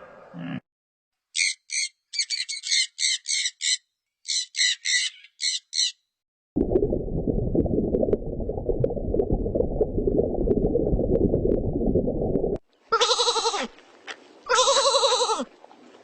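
A string of separate animal sounds. First come two quick runs of short, high chirps, like a bird's. Next is a coarse, low noise lasting about six seconds, and near the end come two drawn-out bleats of a sheep or goat.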